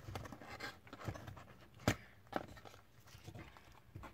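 Cardboard gaming-mouse box being handled and opened: scraping and rustling with a few sharp clicks, the loudest about two seconds in.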